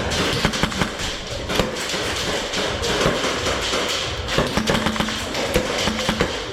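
Airsoft gunfire in an indoor close-quarters arena: a rapid, irregular string of sharp cracks from shots and BBs striking walls and cover, over background music.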